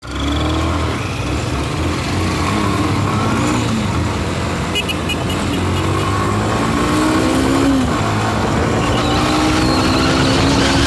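Motorcycle engine running under way, its pitch climbing through each gear and dropping at the shift, about three times, over a low rumble and wind rush. A few short high beeps sound about five seconds in.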